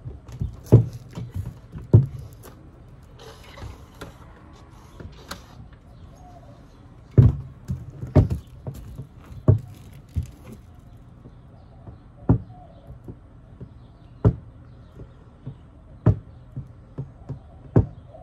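Sharp knocks and taps on a hollow plastic bucket as a hot soldering iron is poked through its bottom to make drainage holes, one every one to two seconds with a pause of a few seconds after the first two.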